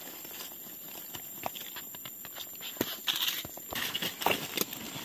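Dry leaf litter crackling and rustling with many scattered sharp snaps, from someone moving about and picking mushrooms on the forest floor; the crackling grows busier about three seconds in.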